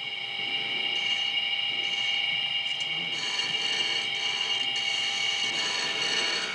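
Electric key-cutting machine running with a steady high whine, its grinding hiss growing stronger about three seconds in.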